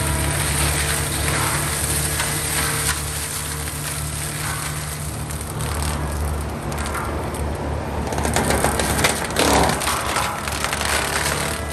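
Gyro-Trac 500HF forestry mulcher running at a steady engine speed, its toothed drum grinding through brush and saplings with a crunching, splintering noise. The crunching grows loudest about eight to ten seconds in.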